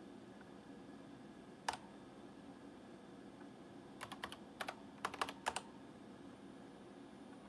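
Keystrokes on the HP 9816 computer's keyboard: a single key press about two seconds in, then a quick run of about eight clicks between four and five and a half seconds in, over a faint steady hum.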